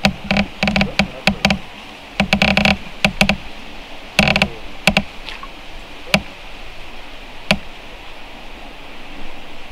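Irregular sharp knocks and taps, in quick clusters over the first few seconds and then a couple of single knocks later.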